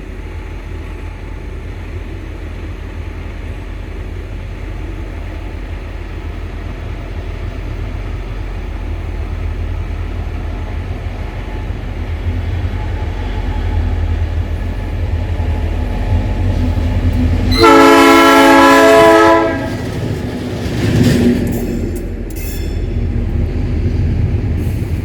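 EMD G26C diesel locomotive approaching with a low engine rumble that slowly grows louder, then its Nathan P3 air horn sounding one loud blast of about two seconds, a chord of several tones. A shorter, rougher loud sound follows a few seconds later as the rumble carries on.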